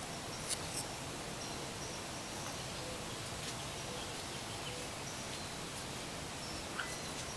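Steady outdoor background hiss with faint, scattered high chirps and a few small clicks and rustles, two of them about half a second in and one near the end.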